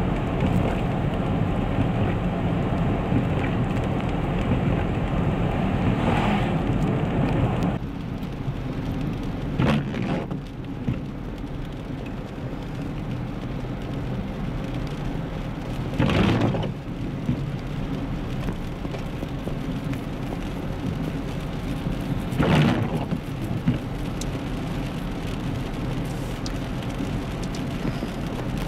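Freezing rain falling steadily, an even hiss and patter, with several brief swishes spread through it.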